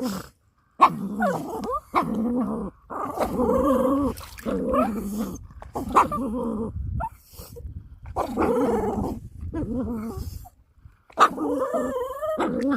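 Dog growling playfully while tugging a toy: a run of wavering, pitched growls, each lasting about a second, broken by short pauses.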